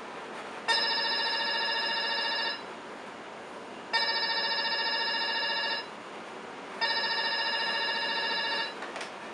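Desk telephone ringing three times, each ring a steady tone about two seconds long with a pause of about a second and a half between them, then a short click near the end.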